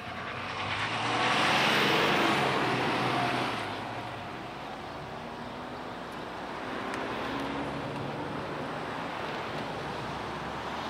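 Road traffic at slow speed: a vehicle passing close by swells to a loud tyre-and-engine hiss from about one to three and a half seconds in, then steady low engine and road noise.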